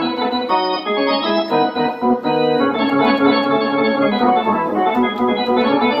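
Roland D-50 synthesizer playing a rock organ patch with its built-in effects switched on: sustained organ chords that change every half second or so.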